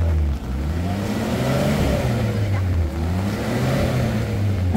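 Car engine revving up and falling back again and again, roughly every two seconds, over a steady hiss: a driver rocking a car stuck in mud to free it.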